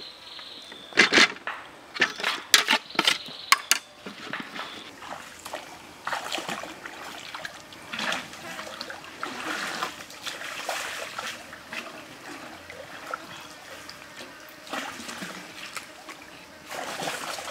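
Water splashing and sloshing as a person wades through a shallow stream and dips a cooking pot to fill it, in irregular strokes. A quick run of sharp, loud knocks comes in the first few seconds.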